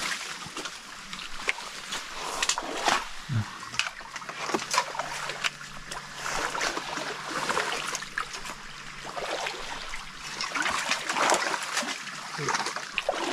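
Shallow stream water splashing and sloshing in irregular strokes as people wade through it, over the steady hiss of the flowing stream.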